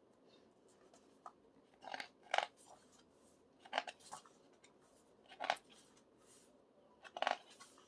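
Pages of a K-pop album photobook being turned and handled: about five short papery swishes a second or two apart.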